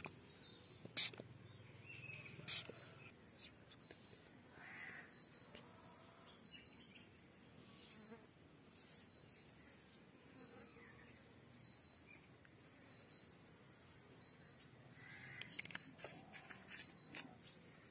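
Faint, steady, high-pitched insect trilling with short chirps repeating at an even pace, and a few soft clicks in the first few seconds.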